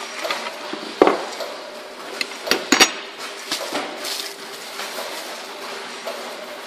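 Sharp metallic knocks and clatter from the metal parts of a film-wrapping machine being handled during a roll change. The loudest knock is about a second in and a close pair comes near three seconds, then softer rustling of plastic film, all over a steady low hum.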